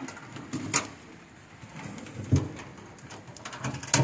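A few separate knocks and clunks, about a second apart, as the bow locker's board lid and its aluminium edges on a small aluminium boat are handled.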